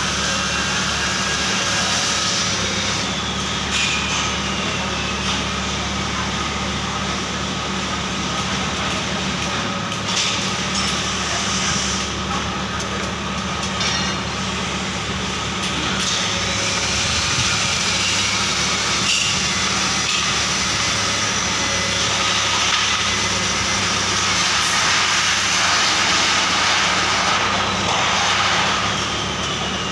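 Forklift engine idling steadily, with a few faint knocks from the panels on its forks being handled.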